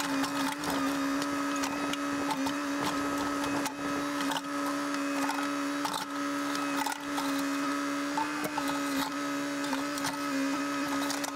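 Cat 432E backhoe loader's diesel engine and hydraulics running steadily under load, a constant hum from inside the cab, while the backhoe bucket digs into a mound of soil and stones with scattered clicks and knocks.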